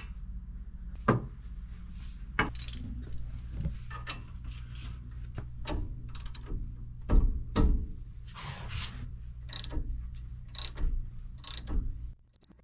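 Scattered metallic clicks and clanks of a wrench and socket working the caliper bracket bolts on a pickup's front wheel hub, about a dozen in all, over a steady low hum that cuts off near the end.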